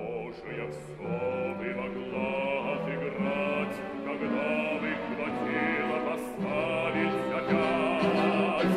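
Operatic baritone singing in Russian over an orchestra, with long held notes and a wide vibrato.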